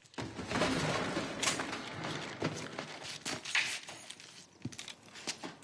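A run of crashes, bangs and clatters of things being knocked over: someone tripping into a stack of boxes and a mop.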